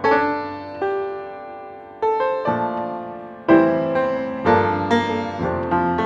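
Background piano music: chords and single notes struck one after another at an unhurried pace, each left to ring and fade.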